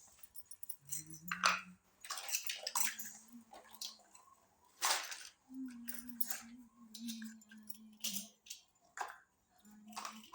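Light taps and clicks of small plastic toy kitchen pieces being handled and set down, with a low hum that comes and goes in several stretches.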